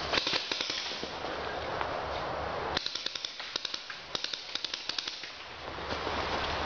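Paintball markers firing a rapid string of sharp pops, about five a second, starting about three seconds in and lasting roughly three seconds, over a steady rushing hiss.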